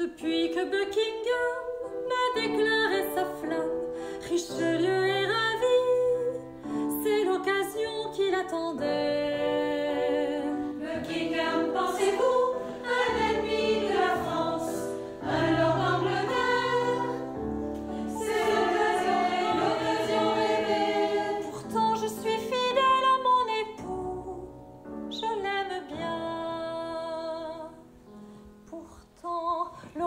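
Women singing in French, a lead voice alternating with a small women's chorus, over an instrumental accompaniment.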